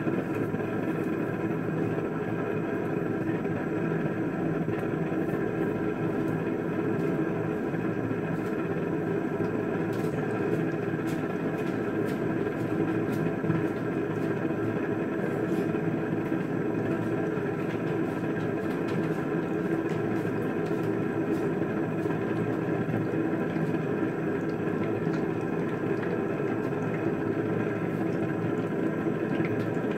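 Gas stove burner running steadily under a frying pan of oil as it heats, an even rumble with a faint hum and no sizzling yet. A few faint ticks come through around the middle.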